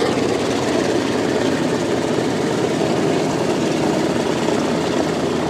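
Twin radial engines and propellers of a flying boat running steadily as it taxis on the water.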